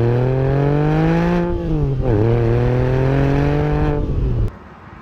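Porsche 911 (997.1) flat-six heard close to its exhaust tips, accelerating with the pitch climbing, a quick upshift about two seconds in, then pulling again in the next gear. The sound cuts off suddenly near the end.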